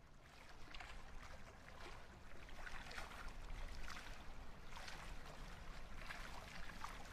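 Faint ambience of water lapping gently, with soft irregular small splashes over a low steady hum.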